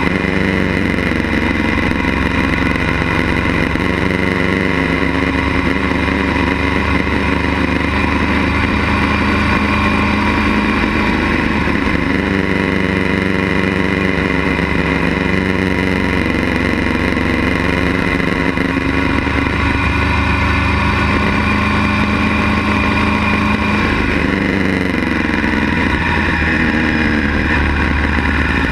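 Motorcycle engine running under way, heard from the bike itself, its pitch shifting up and down with the throttle and climbing again near the end.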